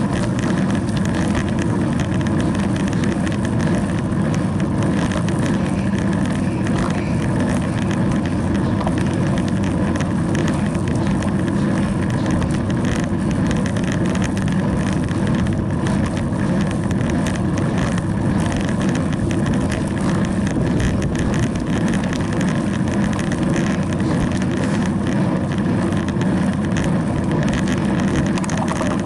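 Steady rush of wind over a bicycle-mounted camera's microphone, mixed with tyres rolling on asphalt as a road bike rides along.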